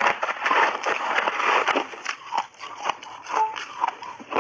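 Metal spoon scraping and digging into crunchy refrozen ice in a plastic tub. It gives a dense gritty scraping for about two seconds, then sparser clicks and crackles as a block is prised loose and lifted out.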